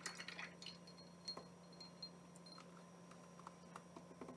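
Near silence with faint scattered clicks of ice cubes shifting in a glass as milk is poured over them, over a low steady hum.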